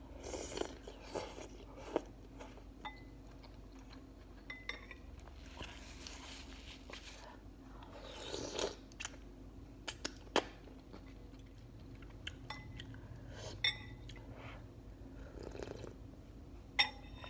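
Person eating ramen noodles: slurping noodles and broth and chewing, with a fork and spoon clinking sharply against a ceramic bowl a few times.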